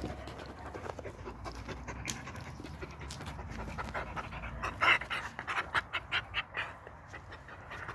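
Dog panting, soft at first, then louder quick breaths about three a second from about halfway through.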